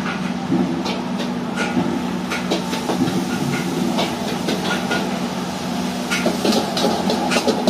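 Fried rice cooking in a steel wok: a steady hiss and hum from the stall's gas wok burner and fan, with the metal ladle scraping and clinking against the wok at irregular intervals.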